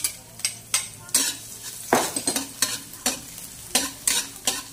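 Metal spatula scraping and stirring minced garlic in hot oil in a wok, about two strokes a second, the loudest scrape about two seconds in, over a steady sizzle of the garlic sautéing.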